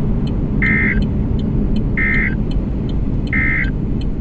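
NOAA Weather Radio end-of-message data bursts: three short, high buzzy beeps about 1.4 s apart, signalling the end of the tornado warning broadcast. Steady car road noise runs underneath.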